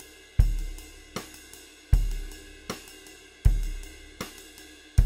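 Drum kit playing a slow groove. Bass drum hits come about every one and a half seconds, with a lighter snare stroke halfway between, and quick, steady timekeeping on a cymbal runs throughout. The last bass drum hit near the end is left to ring out.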